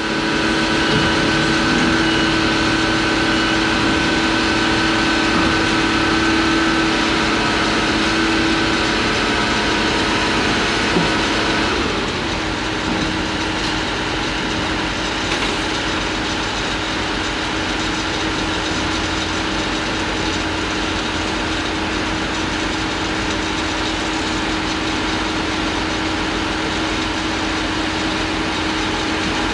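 Diesel engine of a crawler crane on a barge, running steadily as the crane holds and slowly lowers a steel sheet pile. A higher tone in its sound stops about twelve seconds in, and it runs slightly quieter after that.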